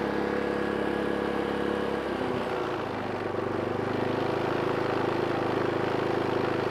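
Pulsar GX400BN dual-fuel inverter generator's engine running steadily just after its first start. About two seconds in, its note shifts and it settles to a different steady speed, the engine's speed being adjusted in eco mode.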